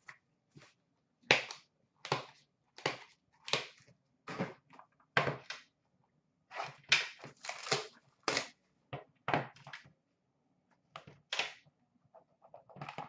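Hands handling and opening a cardboard trading-card box on a glass counter: a string of short, sharp crackles, taps and knocks, about two a second with short pauses between.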